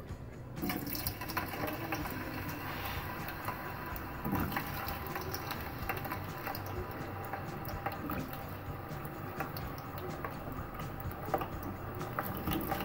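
Sweet potato sticks deep-frying in hot oil: a steady sizzling and bubbling full of small crackles, louder from about half a second in.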